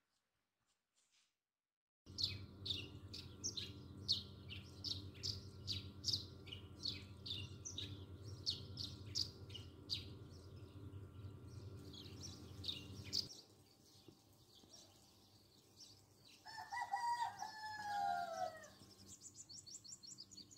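A small bird chirps about twice a second over a low steady hum. Then a rooster crows once: a call about two seconds long that falls in pitch at the end. A quick high trill follows near the end.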